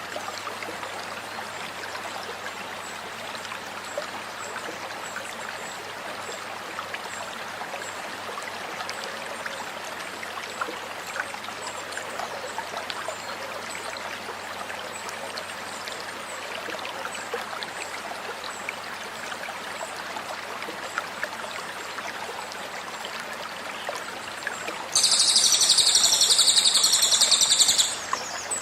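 Stream water running steadily with faint, regularly spaced high chirps. About 25 seconds in, a loud, rapid, very high trill lasting about three seconds cuts in and stops abruptly: the 'tembakan' burst call of a velvet-fronted nuthatch (cililin).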